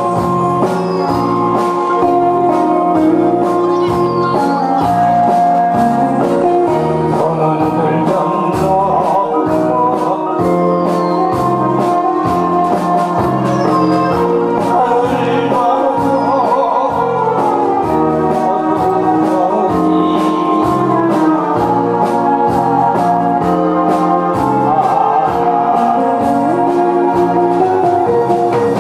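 A man singing into a handheld microphone over a loud backing track with a steady beat and sustained keyboard notes.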